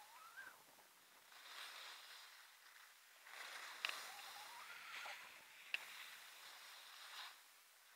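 Faint swishing of skis turning on snow, three swishes one after another, with two sharp clicks in the middle.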